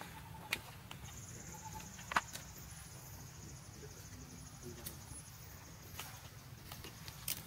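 Forest ambience: a high, finely pulsing insect buzz starts about a second in and holds steady over a low rumble, with three sharp clicks.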